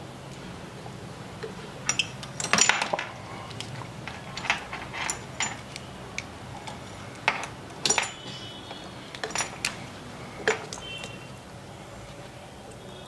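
Metal hand tools clicking and clinking against a repair bench: irregular sharp taps and knocks, a few with a short metallic ring, as tools are picked up and set down while rosin is prepared for a shorted capacitor on a phone board. A low steady hum runs underneath.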